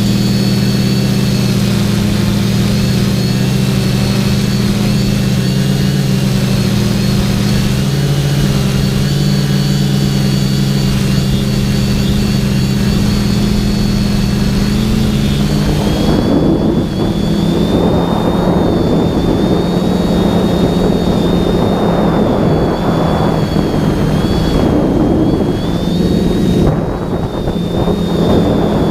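TBS Discovery quadcopter's electric motors and propellers whining steadily in flight. About halfway through the pitch shifts and a gusty rush of air noise joins the whine.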